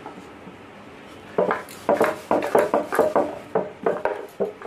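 Wooden rolling pin worked quickly back and forth over a stack of layered dough rounds on a wooden board: a run of short knocking strokes, about four a second, starting about a second and a half in.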